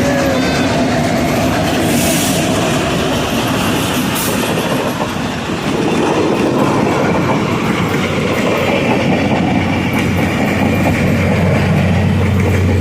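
Train cars rolling past at close range, their wheels clacking steadily over the rail joints.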